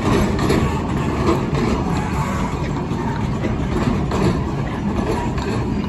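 Narrow-gauge wooden passenger carriages rolling slowly past on the track while being shunted, a steady rumble of wheels on rail with irregular clicks and knocks.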